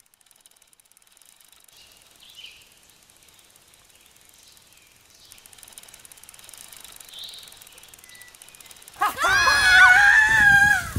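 A woman screams, a loud, high, wavering scream about two seconds long starting near the end. Before it, faint bird chirps and a bicycle rolling along a dirt forest track.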